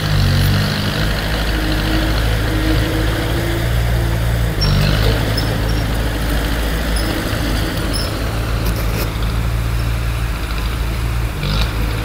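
Heavy diesel engine of earthmoving machinery running steadily, its pitch shifting slightly now and then, with a couple of brief higher-pitched noises about halfway through and near the end.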